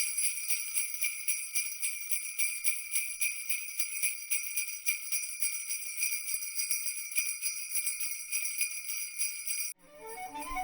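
Bells jingling in a rapid, even shake, a bright high ringing that cuts off suddenly near the end; music starts right after.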